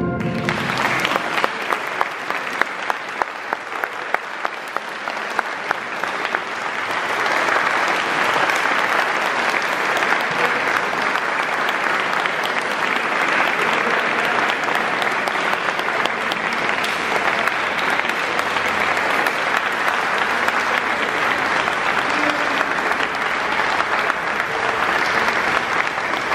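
Audience applauding a wind band: scattered separate claps at first, swelling after about six seconds into full, steady applause.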